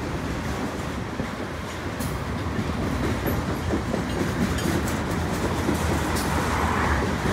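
Freight train cars, covered hoppers and tank cars, rolling past with their wheels running on the rails as a steady rolling noise. It grows a little louder from about three seconds in.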